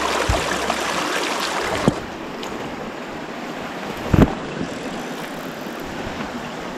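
Small rocky mountain creek rushing steadily over stones in a riffle, dropping a little in level about two seconds in. A few dull thumps break through it, the loudest about four seconds in.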